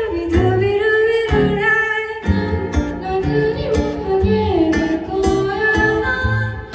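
A live pop ballad: female vocals singing a melody over acoustic guitar and keyboard accompaniment, with low bass notes about once a second.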